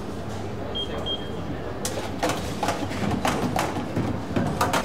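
Kitchen clatter of metal knocks and clanks as the baskets of a stainless-steel pasta cooker are handled, in a quick run through the second half. Two short electronic beeps come about a second in.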